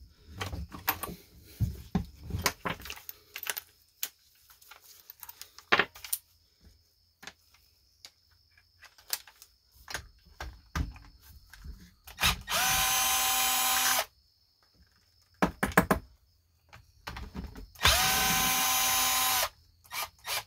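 Cordless drill/driver running in two steady, whining bursts of about a second and a half each, a little past halfway and again near the end, backing out bolts on a chainsaw. Scattered clicks and clinks of hand tools and small parts being handled come before and between the bursts.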